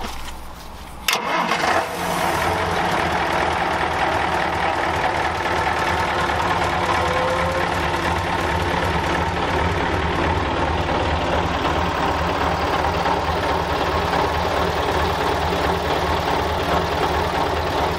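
Scania 141's 14-litre V8 diesel engine cranked on the starter, catching about a second in, then running at a steady idle.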